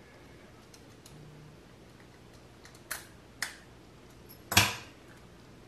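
Light clicks and taps of lightsaber hilt parts, metal and plastic, being handled and fitted together: two small clicks about three seconds in and a louder one about a second and a half later.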